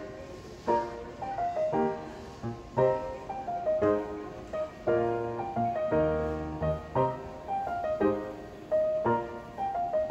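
Background music: a gentle piano piece, with chords struck about once a second and single melody notes between them.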